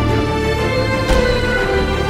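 Background music with sustained chords and a single percussive hit about a second in.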